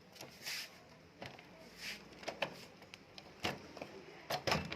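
Irregular sharp clicks and light knocks from hands working on parts, with two brief hissing rustles. The loudest, closely spaced knocks come near the end.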